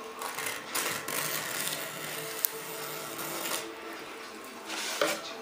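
Single-edge razor blade scraping and trimming cured fiberglass cloth and resin along a panel's edge: a series of uneven rasping strokes, with one sharp tick about halfway through.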